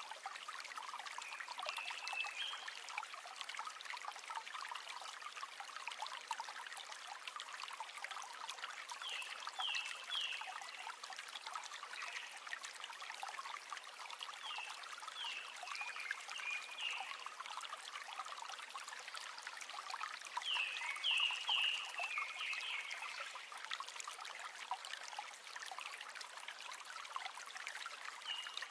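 River water running and trickling in a steady rushing babble. Groups of short, high, falling chirps sound several times, in runs of two to four notes.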